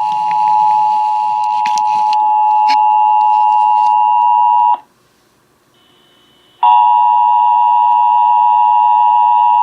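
Emergency Alert System attention signal: the steady two-tone alarm of 853 and 960 Hz broadcast ahead of a test message. It cuts off about five seconds in and, after a near-silent gap of about two seconds, starts again.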